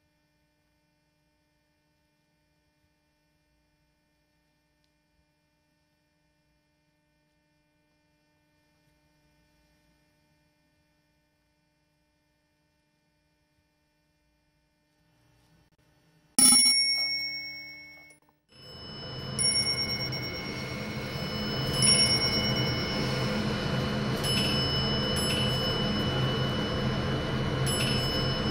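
Near silence with a faint hum for over half the time, then a single struck bell-like chime that rings out and fades over about two seconds. It is followed by a dense, sustained musical sound with steady high ringing tones.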